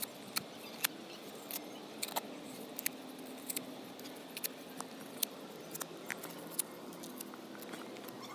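Cardboard being torn up and handled: irregular sharp crackles and clicks.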